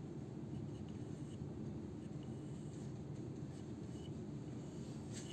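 Graphite pencil scratching in short strokes on a white primed drawing board, over a steady low room hum.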